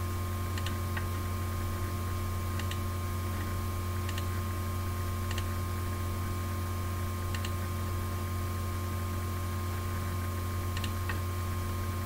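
Steady low hum with a faint steady whine above it, and faint clicks at irregular intervals.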